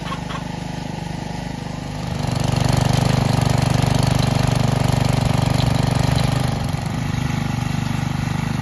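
Rear-tine garden tiller's small gas engine running steadily as its tines churn the soil, growing louder about two seconds in and easing back near the end.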